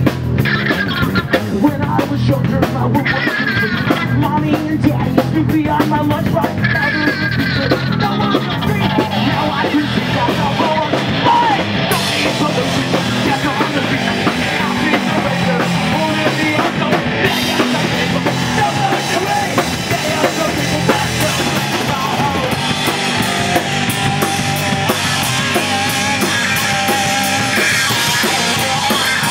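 Punk rock band playing live: drum kit, guitar and a singer's vocals.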